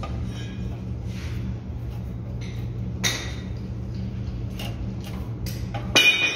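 Pedestal spot welding machine humming steadily at mains pitch while a sheet-steel box clatters into place between its copper electrode arms; about six seconds in, a spot weld fires with a sharp crack followed by a brief high metallic ring.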